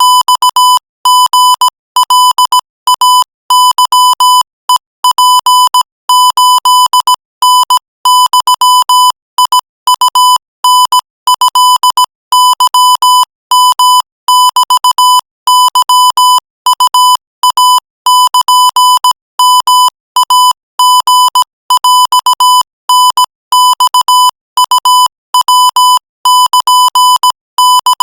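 Morse code sent at 20 words per minute: a single-pitch beep near 1 kHz keyed on and off in short and long marks (dots and dashes), grouped into letters and words by short silent gaps.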